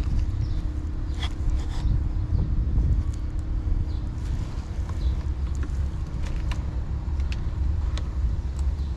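Steady low rumble of motor traffic with a constant hum, and a few faint light clicks and taps from the bike being handled.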